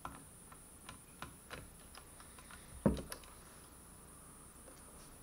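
Light, irregular clicks and taps of small tools and screws on a laptop's plastic case, with one louder knock near the middle.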